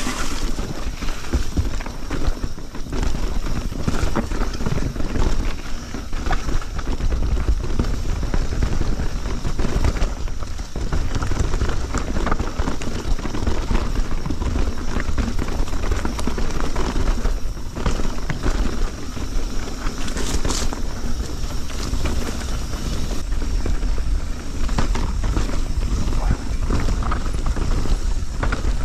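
Mountain bike riding fast down a dirt forest singletrack: tyres on dirt and roots, with the bike clattering over bumps in many short knocks, over a steady rumble of wind on the microphone.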